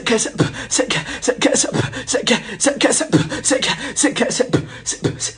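Fast, loud percussion: a dense run of bright, cymbal-like clashes, about five or six a second, over low drum strokes that drop in pitch.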